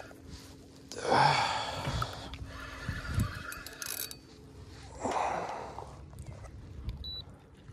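Two loud, breathy exhales, about a second in and again about five seconds in, from an angler straining while reeling in a heavy fish.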